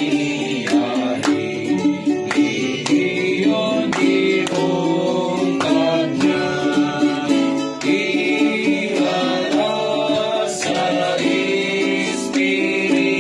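A song with group singing over strummed and plucked guitar and a steady beat.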